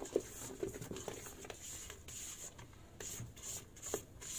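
Silicone spatula scraping and folding thick sponge-cake batter around a stainless steel bowl, in quick repeated strokes several times a second, as the flour is worked in.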